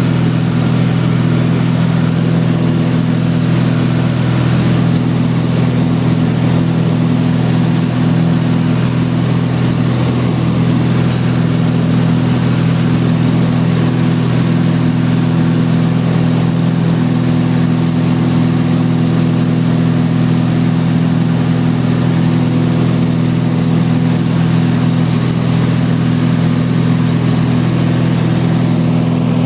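1958 Cessna 172's six-cylinder Continental O-300 engine and propeller droning steadily in flight, heard inside the cabin with a hiss of rushing air.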